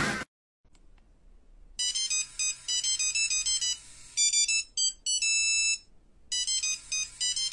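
A bright electronic ringtone-style melody of short, high beeping notes. It starts about two seconds in after a moment of near silence, breaks off around the middle for a short held chord, then resumes.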